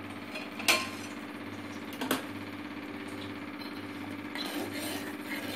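Sago pearls boiling in an aluminium pot, a steady fast bubbling, with two sharp knocks of a steel ladle against the pot, the first and loudest under a second in, the second about two seconds in.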